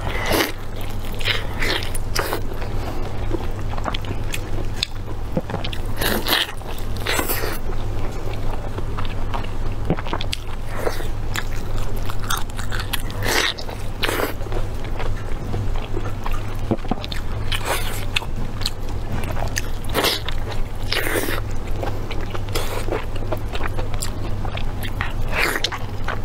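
Close-up mukbang eating sounds: biting and chewing sauce-glazed braised meat, with irregular chews and mouth noises every second or so over a steady low hum.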